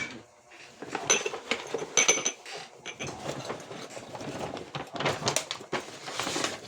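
Kitchenware being handled: repeated clinks and knocks, with a couple of brief metallic rings about one and two seconds in.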